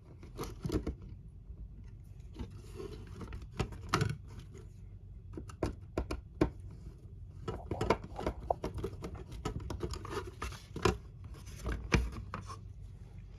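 Small plastic model parts being handled: irregular clicks, taps and light scrapes, a few sharper knocks among them.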